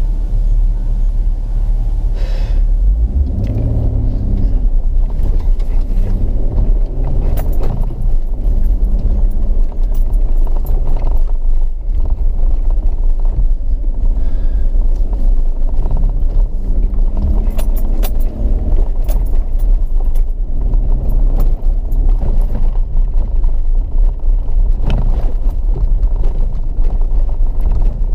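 4x4 driving over a rough dirt and gravel track, heard from on board: a steady low engine and road rumble, with the engine note rising and falling a few times and frequent rattles and clicks as the vehicle bumps along.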